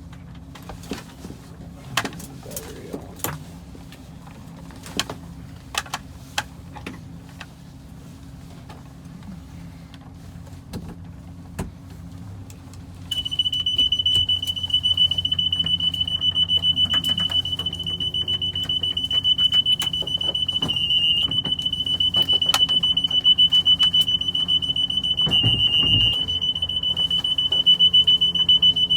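Scattered clicks and knocks. About halfway through, a steady, high-pitched helicopter cockpit warning horn comes on and holds, cutting off suddenly near the end.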